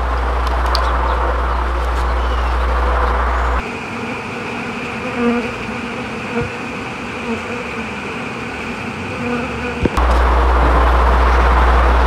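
A large mass of honey bees buzzing, a dense steady hum from an opened colony. A deep steady rumble sits underneath for the first few seconds and comes back near the end.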